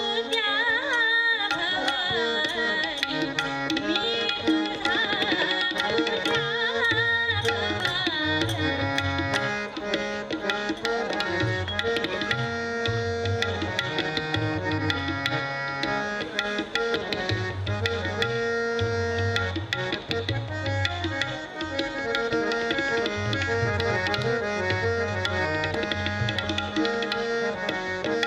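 Devotional kirtan music: tabla with held notes of a melodic accompaniment, and a voice singing a line over the first several seconds. After that the tabla and accompaniment play on without singing.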